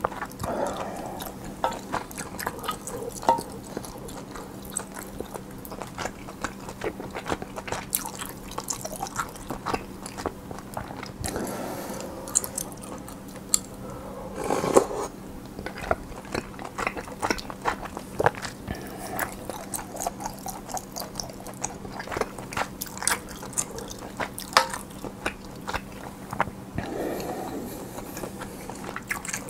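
Close-miked eating sounds: steady chewing with many wet mouth clicks and smacks, and a few louder, fuller bites along the way. A faint steady hum sits underneath.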